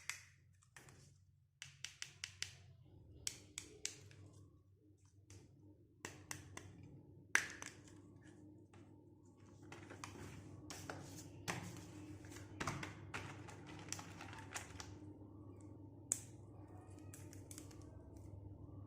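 Small plastic toy pieces and packaging of a miniature doctor set being handled: a run of light taps and clicks, the sharpest about seven seconds in, over a faint steady hum.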